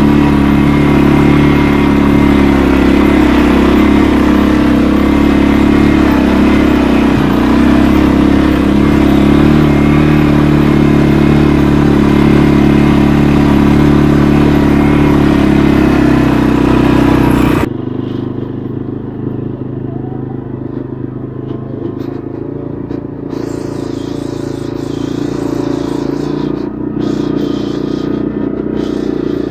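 CFMOTO ATV engine running steadily under way on a dirt track. About two-thirds of the way through, the sound suddenly drops, quieter and duller, while the engine carries on.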